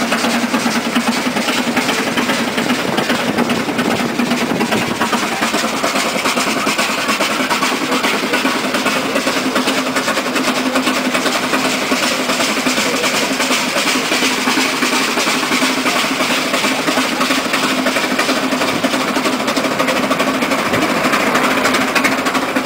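Steam road locomotive running steadily along a paved road: a fast, even mechanical clatter over a steady hum, with no change in pace.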